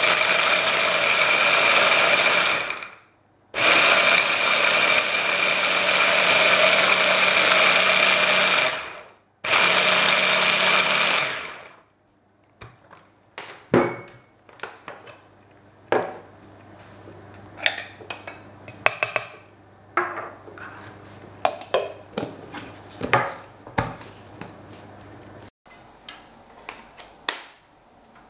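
Bosch ErgoMixx MSM66150 hand blender driving its chopper bowl attachment, chopping a thick mixture. The motor runs in three loud bursts with short stops between, the middle one longest. After that, scattered plastic clicks and knocks as the chopper lid and attachments are handled.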